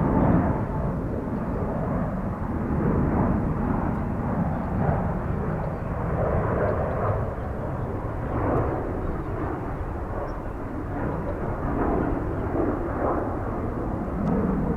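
Jet airliner engines running, a steady low rumble that rises and falls a little in loudness.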